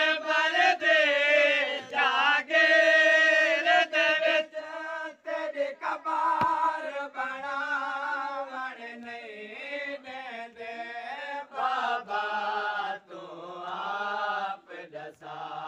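Male voice chanting a noha, a Shia lament, in long, drawn-out wavering notes. It is loud for the first four seconds, then softer, and the pitch sinks near the end.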